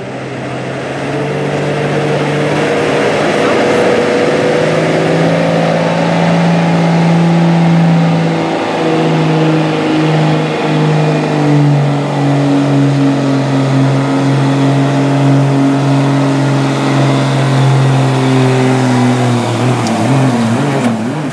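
Dodge Ram pickup's engine running flat out under heavy load, dragging a weight-transfer pulling sled. The engine note builds over the first few seconds, holds high, drops a little in pitch about halfway through, and falls away near the end as the pull finishes.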